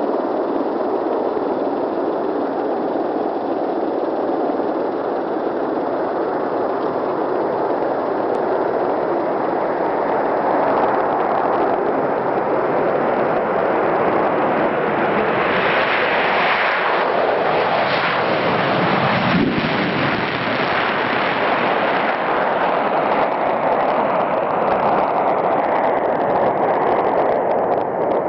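Concorde taking off, its four Olympus 593 turbojets at full power with afterburners in a loud, continuous roar. About halfway through the roar grows brighter as the jet passes and lifts off, and it carries on as the aircraft climbs away.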